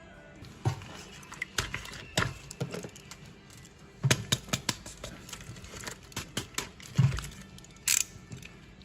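Plastic action figures and packaging being handled: irregular clicks and taps, a few heavier knocks, with light crinkling.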